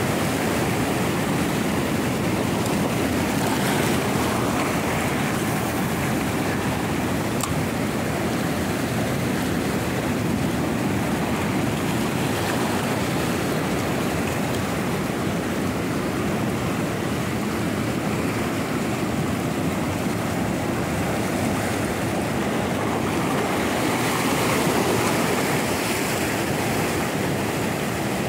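Ocean surf breaking and washing over shore rocks: a steady rush of waves, swelling a little near the end.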